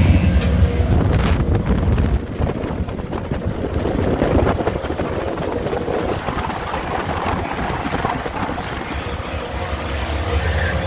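Motorboat running at speed, with wind buffeting the microphone and water rushing past the hull. A heavy low rumble drops away sharply about two seconds in.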